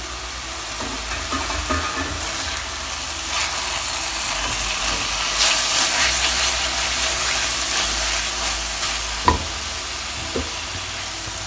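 Thick garlic-tomato chutney sizzling in oil in a nonstick wok as it is stirred with a silicone spatula, a steady hiss: the paste has cooked down until the oil separates. A couple of sharp knocks about nine and ten seconds in.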